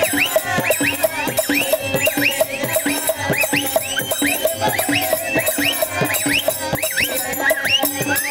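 Live folk-theatre music: barrel drums beating a fast, steady rhythm under a held note, with a thin, shrill whistle-like tone swooping up and down again and again.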